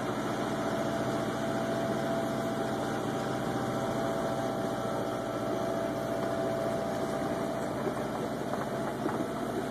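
Beta 38 hp marine diesel engine running steadily at low speed as the sailboat motors along, an even drone with a steady hum. The engine is new, still being run in with about 30 hours on it.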